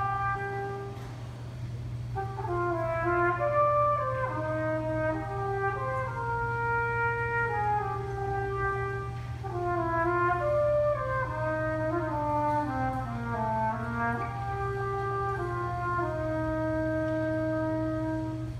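Trumpet playing a slow solo melody of held notes that step up and down, ending on a long sustained note near the end, over a steady low hum.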